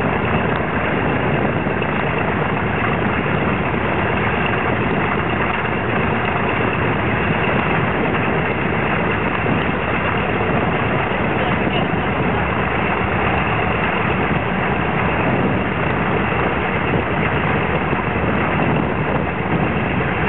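Consolidated PBY Catalina's twin Pratt & Whitney R-1830 Twin Wasp radial engines idling on the ground, a steady, even run with no change in power.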